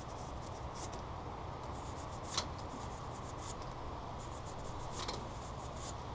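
Small hand brush scrubbing in and out of a bolt hole in a Willys L134 engine block deck, faint intermittent scratching as old sealant is cleaned out, with one sharp tick about two and a half seconds in, over a low steady hum.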